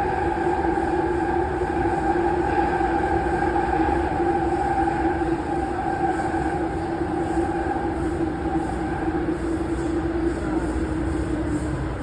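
Toronto Rocket subway train running between stations: a steady rumble with a whine of several steady tones from the traction motors. The higher tones fade out about three-quarters of the way through, while the lower tone lasts almost to the end.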